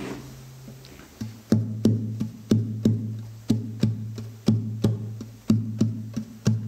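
Nylon-string Spanish guitar. A held chord fades away, then about a second and a half in a rhythmic strummed pattern begins: sharp, percussive strokes in pairs about once a second over a sustained low bass note.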